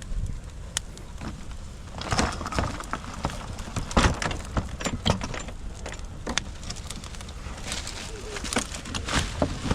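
Large bonfire burning, with irregular sharp crackles and pops of burning wood over a steady low rumble. The loudest pops come about four seconds in and near the end.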